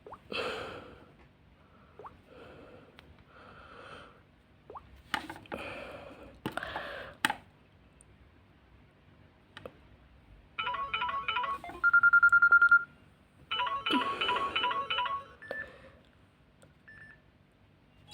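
Samsung Galaxy S4 mini ringtones played one after another as short snippets, each stopping before the next begins. In the first half the sounds are noisy and effect-like; later come electronic beeping melodies, with one loud steady beep about twelve seconds in.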